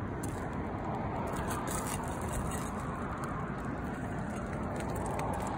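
Steady outdoor background noise, a low rumble with hiss, and a few faint light ticks.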